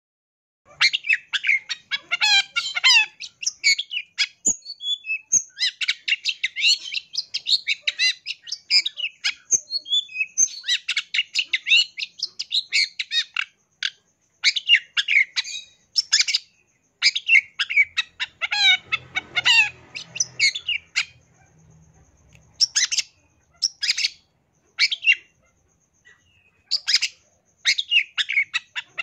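Long-tailed shrike (cendet) singing a fast, chattering song packed with mimicked calls of other birds. It comes in bursts of rapid, high chirps with short pauses between phrases and one longer pause past the middle.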